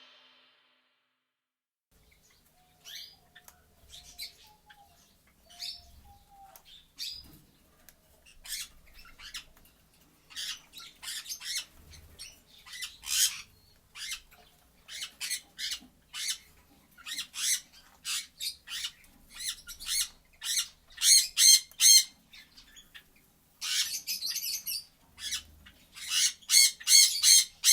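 A parrot squawking in short, harsh calls over and over. The calls are sparse at first and come faster and louder toward the end.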